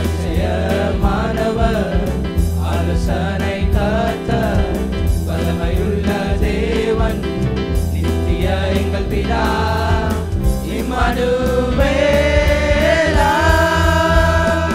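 Male youth choir singing a Tamil Christmas carol together into microphones over instrumental accompaniment with a steady bass and a beat, holding longer notes in the second half.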